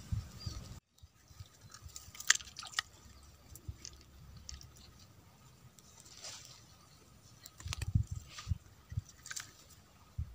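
Handling noise while a small fish is landed on a fishing line: scattered light clicks and rustles, with a few soft low thumps about eight seconds in.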